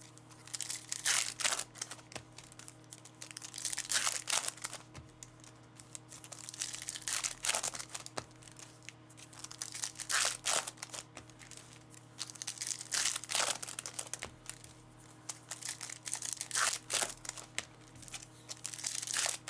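Foil card-pack wrappers being torn open and crinkled by hand, in short rasping bursts every couple of seconds, over a steady low electrical hum.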